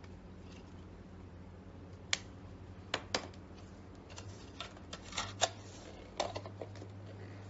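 Unboxing handling noise: the cardboard box, its lid and a clear plastic insert are picked up and set down on a table, giving a string of sharp taps and clatters that bunch together past the middle, over a low steady hum.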